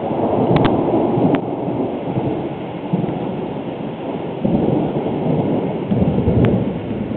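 Thunder rumbling and rolling, swelling louder near the start, again about four and a half seconds in and once more about six seconds in, over a steady wash of rain.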